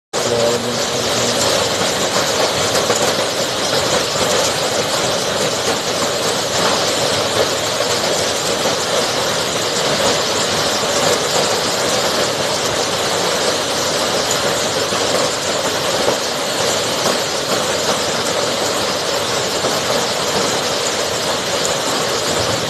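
Marble-sized hail falling heavily, a dense, steady clatter and hiss.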